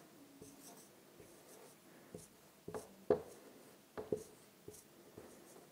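Marker pen writing digits on a whiteboard: a series of short, quiet strokes and taps of the tip, most of them between about two and four and a half seconds in.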